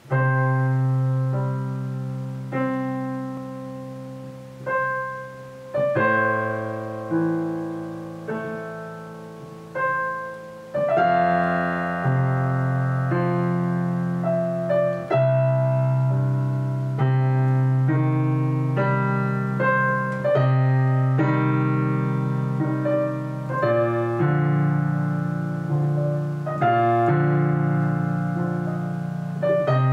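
Digital piano playing solo: held bass notes under chords that ring and fade, in sparse phrases at first that grow fuller and steadier about eleven seconds in.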